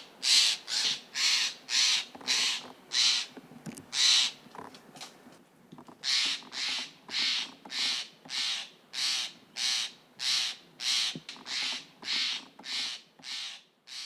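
Steller's jays giving harsh, rasping scolding calls in a rapid, regular series, about two a second, with a short break partway through. The calls are mobbing alarm calls aimed at a spotted owl perched in the thicket.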